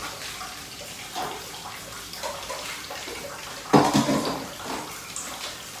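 Steamed rice frying in hot oil in a frying pan, a steady sizzle, with a short clatter about four seconds in.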